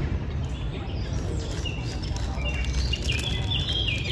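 Small birds chirping, with a busy run of short, repeated high chirps in the second half, over a steady low rumble.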